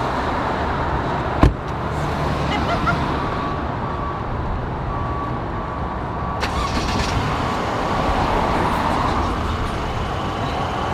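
Street traffic and a car engine running steadily, with a single loud car door slam about a second and a half in.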